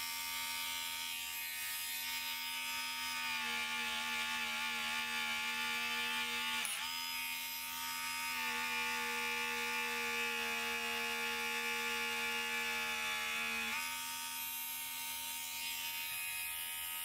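Harbor Freight handheld rotary tool with a felt polishing bit, running with a steady high whine as it polishes a gold grill. Its pitch sags slightly a few seconds in, dips briefly near the middle, and rises again near the end.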